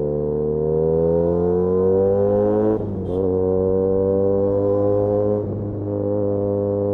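Benelli 302S parallel-twin engine through an Austin Racing titanium exhaust, rising in pitch under acceleration, then dropping sharply at an upshift near three seconds in. It then holds an almost steady tone, with a brief dip as the throttle eases about five and a half seconds in.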